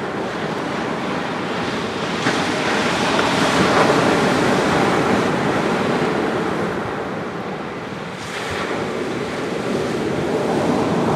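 Surf breaking and washing up a sandy beach on a slightly rough sea, one wave swelling to a peak about four seconds in and easing off, then the next building near the end.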